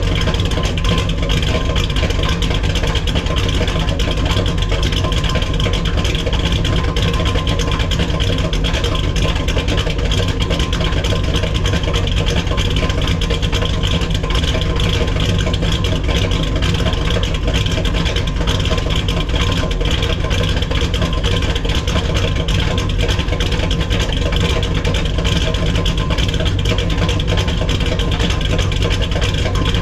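1970 Dodge Challenger's 440 Six Pack V8, three two-barrel carburettors, idling steadily on a cold engine, heard from behind the car at its exhaust.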